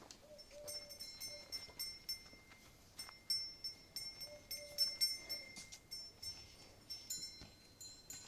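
Small metal bells jingling in irregular clusters of bright, high strikes.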